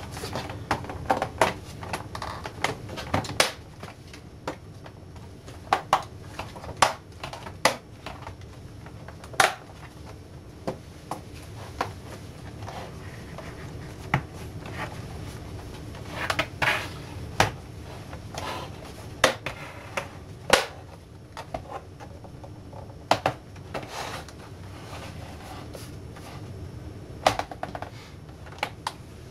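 Plastic case of a ViewSonic VG730m LCD monitor being pressed and snapped together: irregular sharp clicks and knocks as the back cover's tabs catch on the bezel and the case is handled and turned on a desk.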